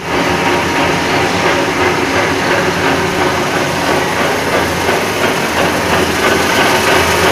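Hydraulic hopper pan mixer running, its mixing arms turning in the pan: a steady mechanical hum from the motor and drive, with a faint high tone over it.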